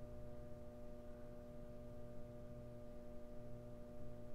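Faint, steady electronic hum: several held tones over a low drone, unchanging throughout.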